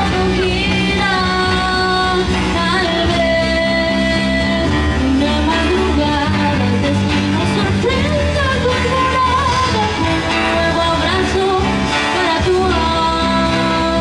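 A young woman singing a rock-style song into a microphone, backed by a live amplified band with electric guitar. Her voice carries a melody of held notes and short glides over the steady accompaniment.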